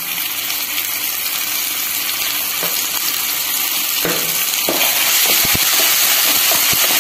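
Sliced small onions and ginger-garlic paste sizzling in hot oil in a kadai, a steady hiss that slowly grows louder. From about four seconds in, a spatula scrapes and stirs through the pan.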